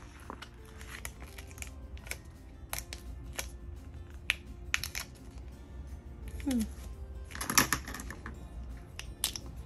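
Scattered light clicks and taps of stickers and paper being handled on a desk, with a louder cluster of clicks about seven and a half seconds in, over faint background music.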